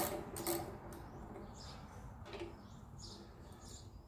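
A socket ratchet clicking through a few strokes, which stop about half a second in. Then a couple of faint clicks and some faint short high chirps.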